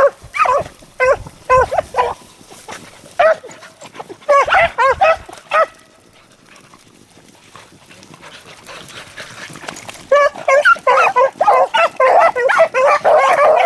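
A pack of beagles baying on a rabbit's track in short ringing calls. The calls thin out and drop away around the middle, then the whole pack opens up together about ten seconds in.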